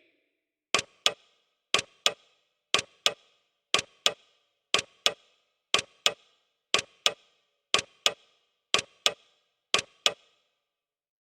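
Clock ticking sound effect: a quick double tick once a second, repeated about ten times, stopping shortly before the end.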